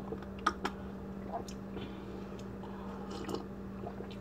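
A person sipping and swallowing a carbonated energy drink from a can, with a few faint mouth clicks, over a steady low hum.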